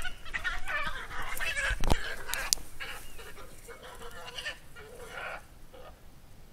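Two European badgers fighting, giving a run of harsh, high screams and squeals that thin out and stop about five seconds in. A single sharp knock about two seconds in is the loudest moment.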